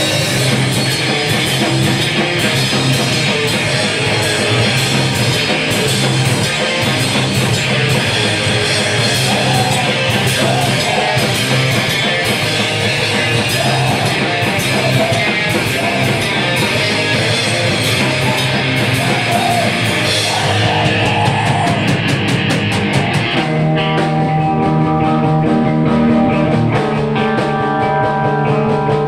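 Live screamo/hardcore punk band playing loud distorted guitars over pounding drums and cymbals. About twenty seconds in the drums stop and the guitars ring on with held, sustained notes.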